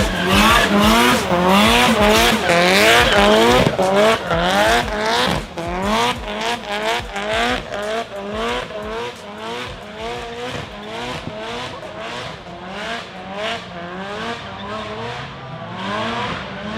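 Modified car engine revved in rapid repeated surges, its pitch rising and dropping back about twice a second, with tyre squeal; the sound grows fainter after about six seconds.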